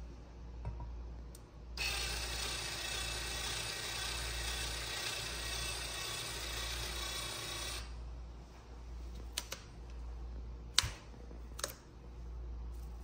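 Cordless drill with a chamfer bit running against the edge of a metal box, cutting the chamfer for about six seconds with a steady whine over a cutting hiss, starting about two seconds in. After it stops, a few sharp clicks as the box is handled.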